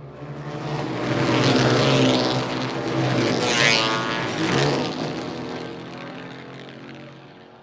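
Motorcycle passing by at speed: its engine grows louder as it approaches, the pitch drops as it goes past about four seconds in, and it fades away.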